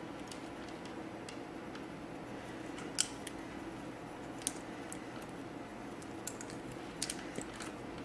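A hand crimping tool clicking as it crimps small terminals onto wire: a handful of short, sharp clicks, the strongest about three seconds in, over a faint steady hum.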